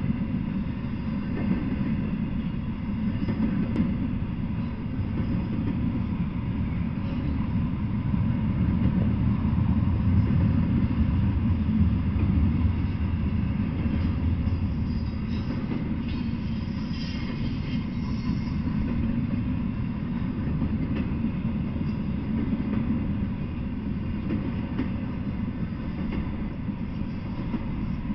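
Intermodal freight train of container well cars rolling past on the rails: a steady low rumble of wheels and cars, swelling a little around the middle.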